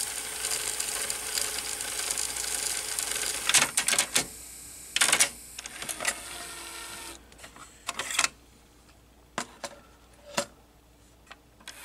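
Technics RS-TR170 cassette deck's tape transport rewinding with a steady whir for about four seconds. A run of sharp mechanical clicks follows as the mechanism changes mode, with a quieter whir for a few seconds, then several separate clicks.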